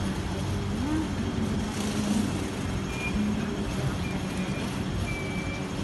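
City street traffic: vehicle engines running and tyre and road noise as a steady low rumble.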